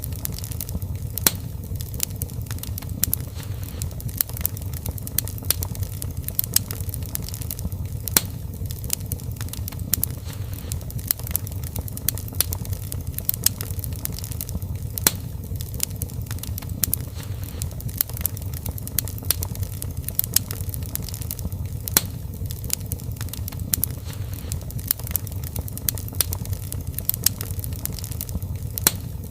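Wood fire in a fireplace crackling: frequent irregular sharp pops and snaps over a steady low rumble of the flames.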